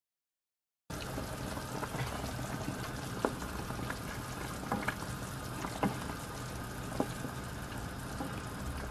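Chicken pieces boiling in broth in a pan, starting about a second in with a steady bubbling, and a few sharp clicks of a wooden spoon knocking the pan as the pieces are stirred.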